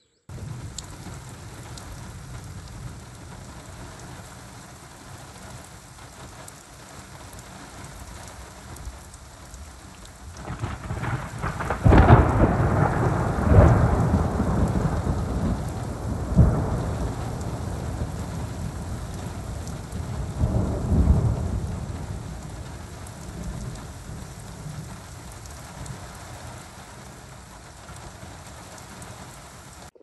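Steady rain falling, with a long roll of thunder that builds about ten seconds in, peaks soon after and rumbles on, swells once more a little later and then fades away.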